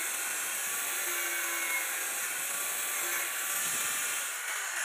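Hand-held angle grinder with a thin cutting disc running and cutting through flattened PVC pipe: a steady hiss with a faint motor whine.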